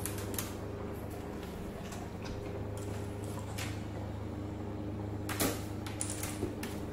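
Scattered clicks and knocks of a golden retriever's claws and paws on a tile floor as it moves about sniffing, over a steady low hum. The sharpest knock comes about five and a half seconds in.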